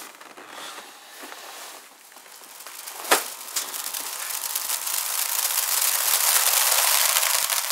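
Log fire crackling in a fireplace, swelling from faint to a dense, steady crackle over several seconds. A single sharp knock comes about three seconds in.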